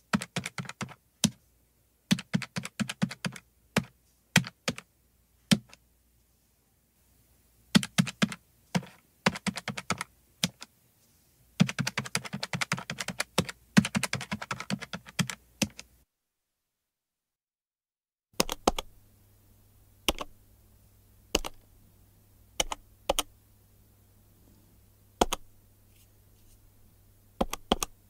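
Buttons of a plastic calculator being pressed, clicking in quick runs of keystrokes. After a short break of silence about two-thirds of the way in, the presses come slower and one at a time over a faint low hum.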